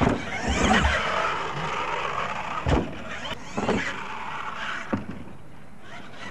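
Scale RC monster truck's motor whining up and down as it is throttled, with several sharp knocks as the truck tumbles and hits the dirt.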